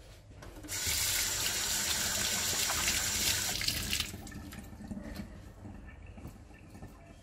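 Kitchen water tap running: a steady rush of water that starts suddenly a little under a second in and is shut off about three seconds later.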